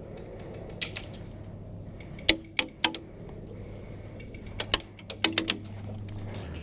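Airsoft guns firing scattered single shots: sharp cracks in loose groups of two or three, over a steady low hum.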